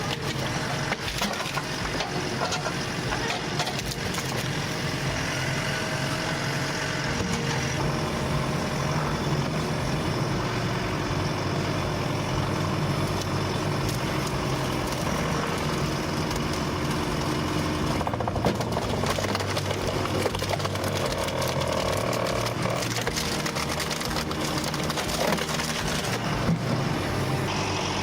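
Firewood processor running steadily, its engine and hydraulics humming under scattered knocks and cracks as logs are cut and split.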